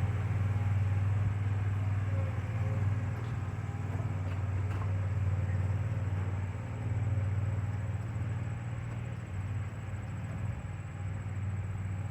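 Compact stand-on lawn mower's engine running steadily at a distance: a muffled low hum.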